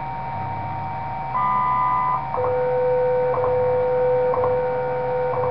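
Philco 39 tube radio's speaker giving steady whistling tones over a low hum on a shortwave signal. A higher pair of tones comes in about a second in and stops; after that a lower, louder tone holds, broken briefly about once a second.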